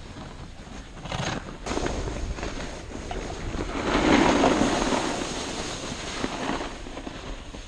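Wind rushing over the microphone of a camera carried by a skier heading downhill, mixed with the hiss and scrape of skis over packed snow. It swells loudest about four seconds in.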